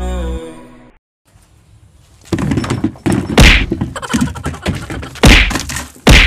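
Background music fades out in the first second. From about two seconds in, a blue plastic bucket is knocked about on gravel ground, giving a run of loud thunks and whacks. The hardest hits come near three and a half seconds, five seconds and right at the end.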